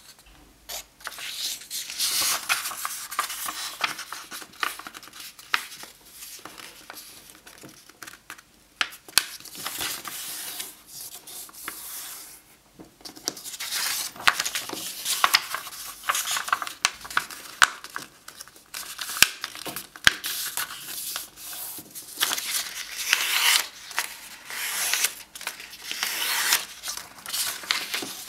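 A sheet of white paper rustling and crackling as hands slide it and crease it into folds, with sharp crisp clicks as creases are pressed down. It goes briefly quieter about twelve seconds in.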